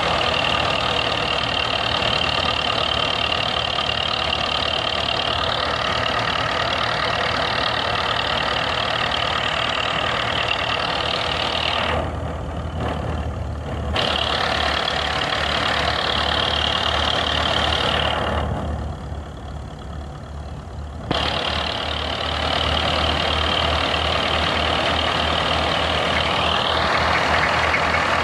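Old Belarus tractor's diesel engine running steadily under load while driving a thresher that is being fed maize cobs, the two machines making one continuous mechanical din. The higher thresher noise thins out twice, briefly about twelve seconds in and for a couple of seconds near twenty seconds, and comes back abruptly while the engine hum carries on.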